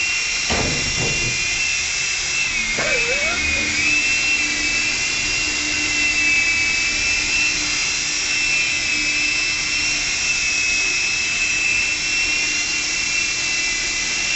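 Blade mCX coaxial micro RC helicopter hovering, its small electric rotor motors giving a steady high whine that dips briefly in pitch about three seconds in.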